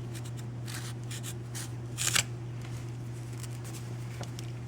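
Serrated blade of a Victorinox Spartan Swiss Army knife sawing through 11 mm climbing rope: a run of short scraping strokes, the loudest about two seconds in, over a steady low hum.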